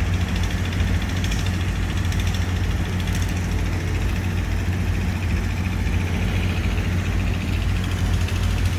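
Komatsu PC400 excavator's diesel engine running steadily, a low, even hum with no change in speed.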